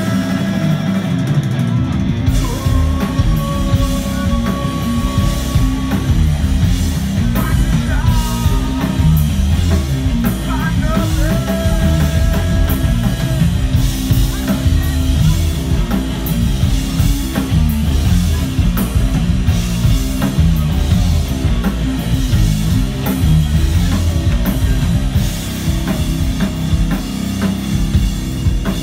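Live stoner rock band playing loud: distorted electric guitars, bass and a drum kit with frequent cymbal hits, and a singer holding long notes over them. Heard from the crowd, heavy in the bass.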